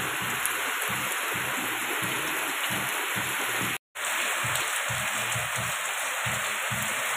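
Heavy rain pouring onto a concrete yard and roofs, a steady dense hiss. It cuts out for an instant about four seconds in, then carries on unchanged.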